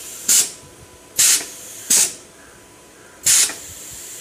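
Compressed air hissing out of a pneumatic brake control valve in four short blasts, each about a quarter of a second, as the valve is worked by hand to apply and release the air brake.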